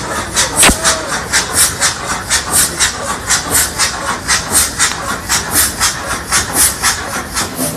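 A large engine running, with a steady rhythmic hissing puff about three times a second. There is a single sharp knock just under a second in.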